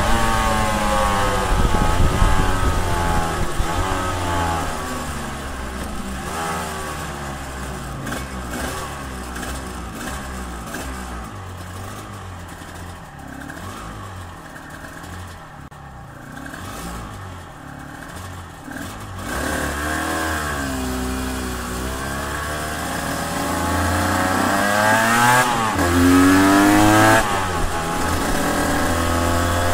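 Two-stroke 250 cc V-twin of a 1993 Suzuki RGV250 (VJ22), fitted with TYGA parts, VHM cylinder heads and re-jetted carburettors. Its revs fall for the first several seconds as the bike slows, then it idles lower and quieter through the middle. From about two-thirds of the way in it revs up again pulling away, with a brief drop at a gear change and a further climb near the end.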